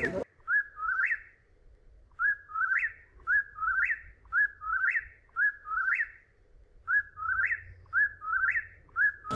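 A high whistled phrase, a short held note that slides up at the end, repeated about once a second. There is one phrase, a pause, then a run of five, a short pause, and a run of three.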